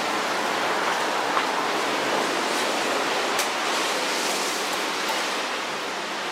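Steady rushing outdoor noise, with a faint click or two.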